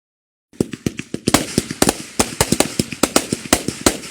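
Fireworks going off in a fast, uneven string of sharp bangs starting about half a second in, with crackling between the bangs.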